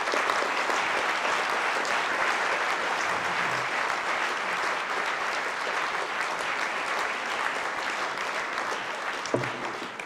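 Applause from a large seated audience filling a hall, steady throughout and dying away near the end.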